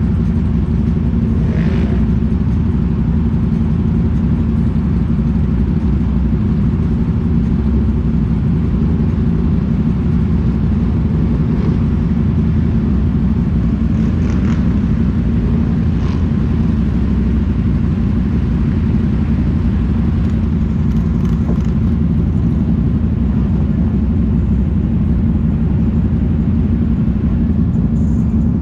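Off-road vehicle engine running, a steady low rumble with no change in level.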